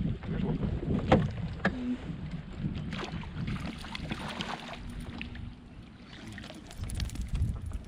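Wind buffeting the microphone on a fishing kayak, a gusty low rumble that eases off past the middle and picks up again near the end. Two sharp knocks about a second in, and a brief hiss in the middle.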